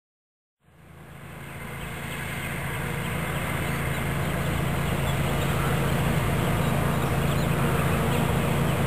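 Dense, steady buzzing of a honeybee swarm, fading in under a second in and growing louder over the next few seconds.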